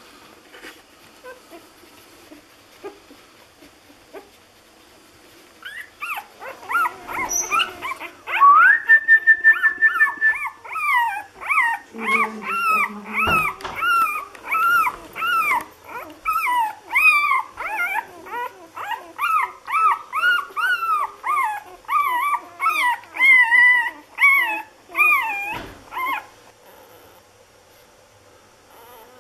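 Six-day-old Lagotto Romagnolo puppies squeaking and whimpering. It is a run of short, high, rising-and-falling whines, about two a second, that starts about six seconds in and stops a few seconds before the end. Near the start of the run there is one longer squeal held on a single pitch.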